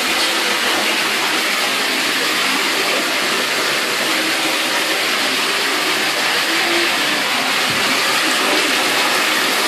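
Bathtub faucet running steadily, water pouring into the tub.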